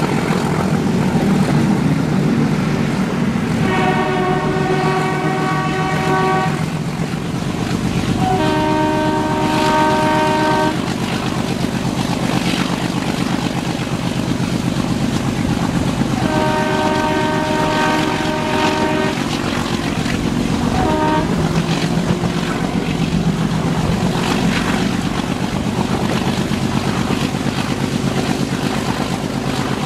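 Diesel locomotive horn sounding three long blasts and then a short toot, over the steady rumble of a moving diesel train.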